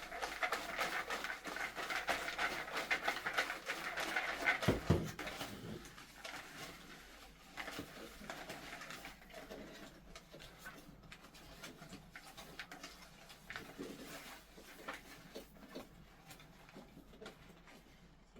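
Paper raffle tickets rustling as a hand stirs through them to draw one, busiest in the first five seconds and fainter afterwards, with a low thump about five seconds in.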